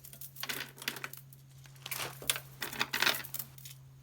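Plastic bags of gemstone bead strands rustling and crinkling as they are handled, in two irregular bursts.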